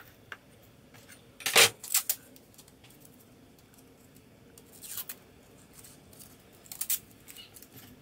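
Utility knife blade scraping and slicing into an insulating panel in a few short, sharp cuts: two close together about a third of the way in, one past the middle and another near the end, with quiet between.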